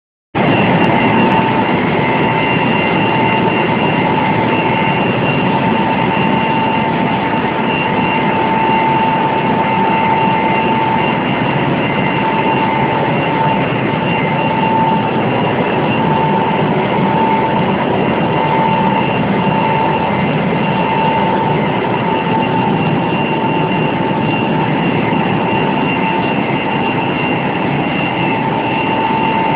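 Cooling tower running: a loud, steady rushing noise with a constant whine through it.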